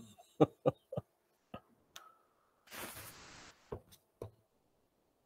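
A scattering of faint, sharp clicks and knocks, about seven in all, with a short rustling hiss about three seconds in.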